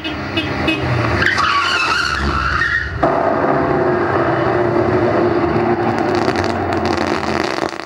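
Car-accident sound effect played back: tyres screeching in a skid, with gliding high squeals for about two seconds, then a sudden change about three seconds in to a steady loud crash noise that cuts off abruptly at the end.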